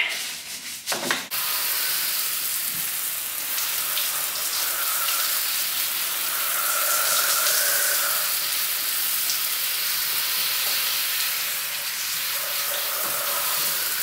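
Hot-water hose with a spray nozzle rinsing dish-soap suds off the stainless steel end of a bulk milk tank: a steady hiss of water spray hitting the metal, starting about a second in.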